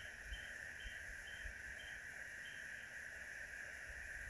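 Steady drone of insects with a short, higher chirp repeating about twice a second. Soft low thuds come now and then.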